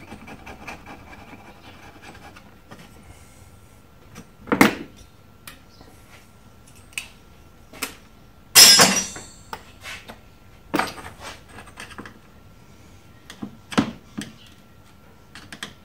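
Intermittent clicks, knocks and clatters of small metal parts and hand tools being handled on a workbench while a computer-chip heatsink is cleaned of thermal paste, the loudest a rattling clatter about halfway through.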